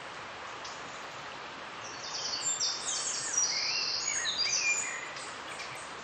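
A songbird singing a rapid phrase of high, quickly changing notes for about three seconds in the middle, over the steady rush of a river.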